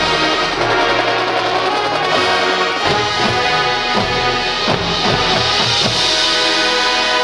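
A high school marching band playing: brass sustaining full chords over steady drum hits, with a hissing swell building about five seconds in.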